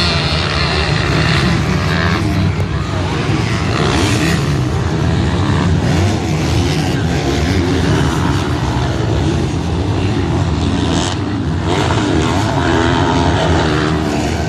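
Several MX2-class motocross bikes racing, their engines revving hard without a break, pitch rising and falling as they accelerate and shift.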